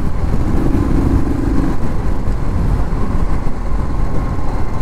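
Motorcycle engine running under way as the rider opens the throttle, with a steady low rumble of wind on the microphone.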